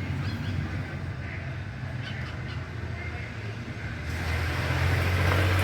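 Steady low mains hum of an electric motor running, growing louder about four seconds in.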